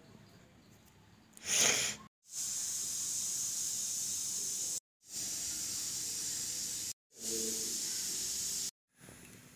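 Steady hissing noise in three stretches, each starting and cutting off abruptly, after a short loud rush about one and a half seconds in.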